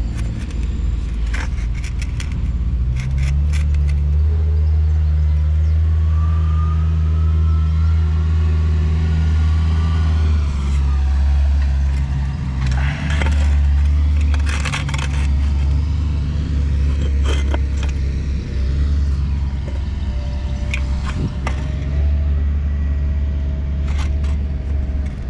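A large engine running steadily, growing louder about three seconds in, with scattered metallic clanks and knocks over it.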